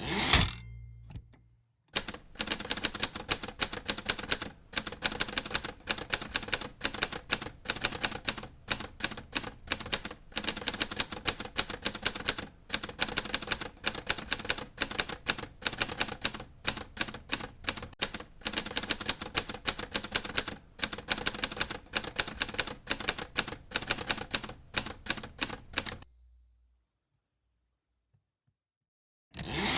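A typewriter being typed on fast, a long run of rapid key strikes of uneven loudness. At the start and again near the end a longer clattering sweep is heard, typical of the carriage being returned. The line of typing ends with the typewriter's bell ringing once and fading, followed by a brief pause.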